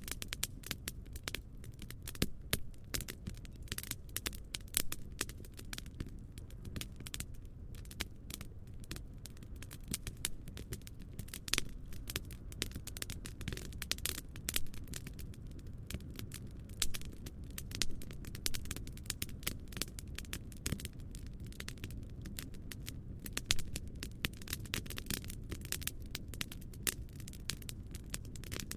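Campfire burning busily: many irregular crackles and sharp snaps each second over a steady low rumble.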